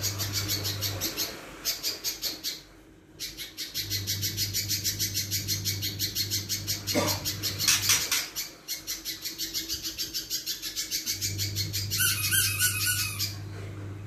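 Caged little spiderhunter (pijantung pisang) singing in full voice: a harsh, rapid chatter of notes repeated about six times a second in long runs, broken by a few short pauses.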